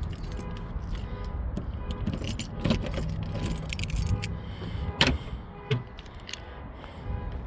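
Light metallic clinks and rattles from the Jeep Wrangler's rear door swing arm and its hardware being moved by hand, with a sharp click about five seconds in.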